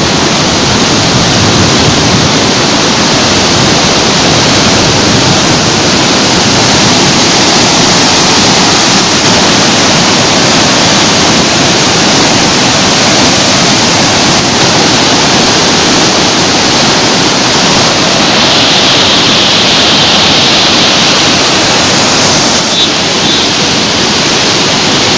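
Water rushing through the open sluice gates of a river barrage and churning below them: a loud, steady rush of falling water.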